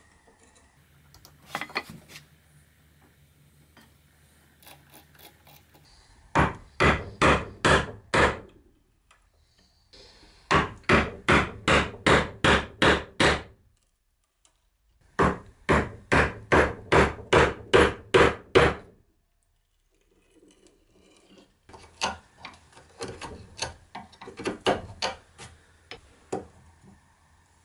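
Mallet blows driving a mortise chisel into a cherry chair leg to chop a mortise, in three runs of steady strikes about three a second. Lighter, uneven knocks follow near the end.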